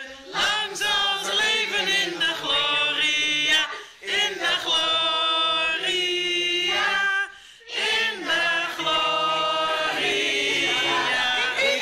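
A small group of people singing a birthday song together, in three sung phrases with short breaks between them.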